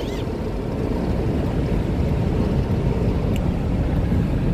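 Steady low road noise of a car driving at highway speed, heard from inside the cabin, growing slightly louder toward the end.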